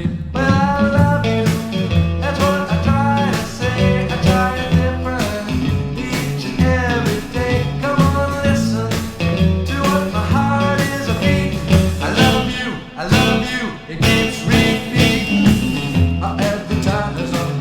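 Rock band playing a song: guitar, bass and drums, with a melodic lead line over a steady beat.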